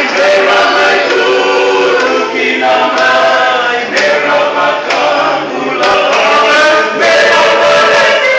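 Small group of young men singing unaccompanied in harmony, several voices holding chords together in phrases with brief breaks between them.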